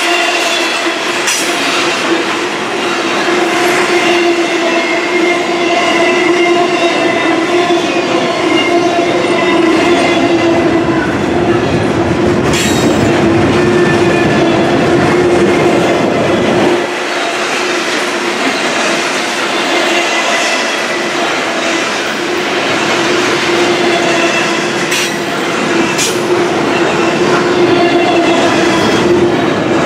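Double-stack intermodal container train's well cars rolling past, their wheels giving a steady squealing tone over a rumble, with a few sharp clacks from the rails.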